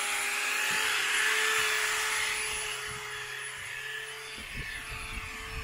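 Angle grinder running steadily, grinding old paint off a cast-iron engine casting back to bare metal: a constant motor whine under a harsh rasp that grows fainter about halfway through.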